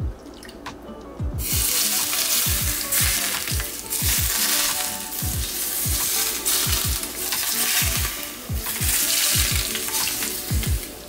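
Hot oil poured over a steamed fish dressed with soy sauce, green onion and ginger, sizzling. The sizzle starts suddenly about a second in and keeps going, over background music with a deep, regular beat.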